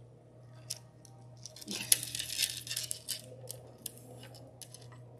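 Plastic beads clicking against each other and the tabletop as beaded cord is handled, with scattered single clicks and a dense rattle of clicks from about two seconds in lasting roughly a second.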